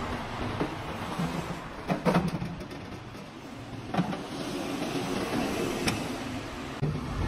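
Metal cooktop rings and lid of a heating stove being laid into place on the stove top, giving a few separate knocks and clanks about two, four and six seconds in.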